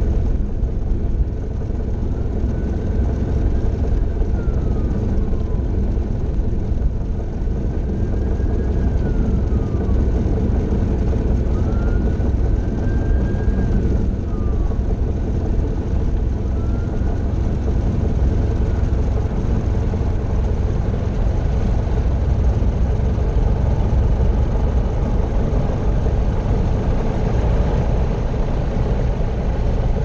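Grumman Tiger's 180 hp four-cylinder engine running at low taxi power, a steady low rumble heard from inside the cockpit. Over it, a faint thin tone rises and falls about four times in the first half.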